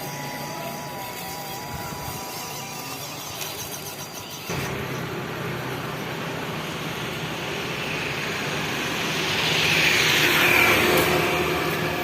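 Electric drive motor and gearbox of a homemade 1/16-scale 4x4 RC truck whirring as it drives, with a thin wavering whine at first. The sound changes abruptly, then swells louder about ten seconds in and eases off near the end.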